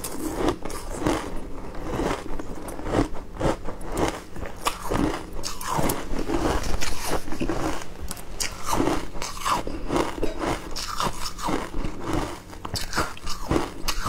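Shaved ice being bitten and chewed: dense, irregular crunching, several crunches a second.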